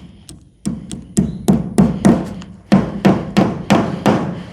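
Hammer driving small nails: about a dozen sharp, ringing strikes at roughly three a second, with a short pause midway.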